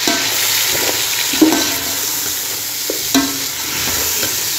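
Chicken and onions sizzling as they fry in a pot. A spoon stirring the pot knocks and scrapes against it a few times.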